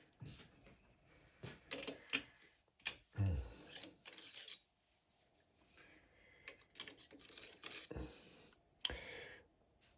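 Scattered light clicks and knocks of small metal tools and parts being handled at a metal lathe, with a duller thud about three seconds in; the lathe is not running.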